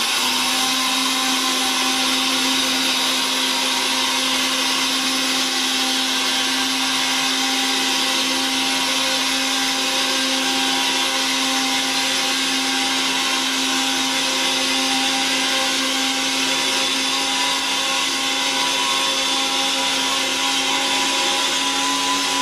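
Bosch VitaPower MMB 6174S 1200-watt blender running steadily at maximum speed, grinding dry quinoa into fine flour in its glass jug: a constant motor whine over the hiss of the milled grain, with no change in pitch.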